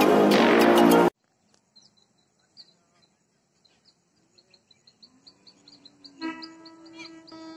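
Intro music cuts off abruptly about a second in, leaving faint bird chirps repeating in a quick series. About six seconds in, a distant locomotive horn of an approaching goods train sounds as a steady held blast.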